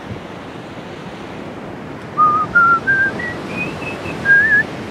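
A person whistling a short tune, starting about two seconds in: about seven clear notes climbing step by step, the last one dropping back down, over the steady wash of surf and wind.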